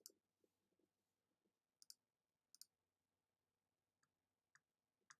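Near silence broken by a few faint, sharp clicks, some in quick pairs, like a computer mouse being clicked.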